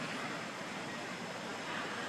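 Steady outdoor background noise: an even hiss with no distinct calls, knocks or other separate sounds.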